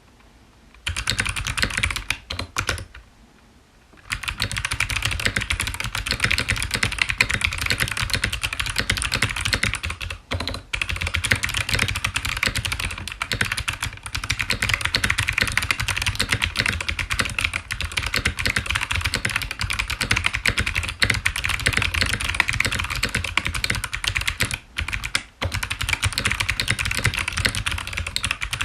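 Fast, continuous typing on a mechanical keyboard with clicky, tactile Kailh Box Jade switches in a Tofu65 aluminium case: crisp clicks over a deep low thud. It starts about a second in, stops briefly near the start, then runs on with a couple of short breaks.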